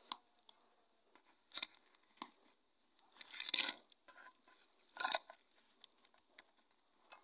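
Fingers pressing and patting soft rolled pizza dough into an oiled steel plate: a few short rustling, squishing sounds and light taps, the loudest about three and a half seconds in and another about five seconds in.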